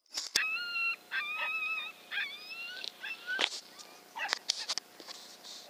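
Coyotes howling and yipping in a string of short, wavering, high-pitched calls through the first three seconds, followed by a few sharp clicks and knocks about three and a half to five seconds in.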